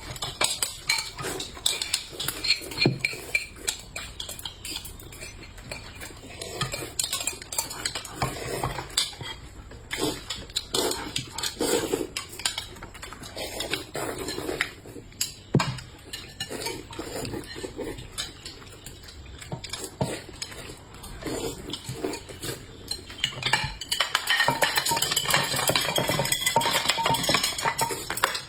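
Chopsticks, spoons and bowls clinking and knocking during a family meal, with chewing and slurping of people eating. The clatter grows busier and louder in the last few seconds.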